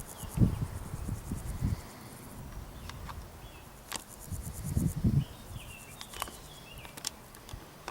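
Insects chirping in fast, very high-pitched pulsing trains, with two clusters of low thumps about half a second and five seconds in, and a few short, higher chirps and clicks.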